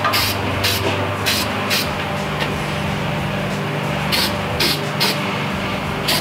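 Aerosol spray-paint can (Rust-Oleum Hammered) hissing in short, quick squirts, about eight in all with a pause in the middle, over a steady low background drone.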